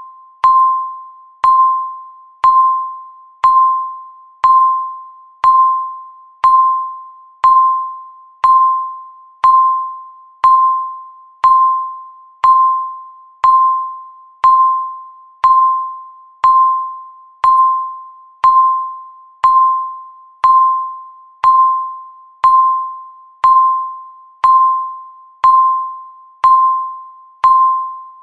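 Countdown timer beep: a single mid-pitched electronic ding once a second, each starting sharply and fading away before the next.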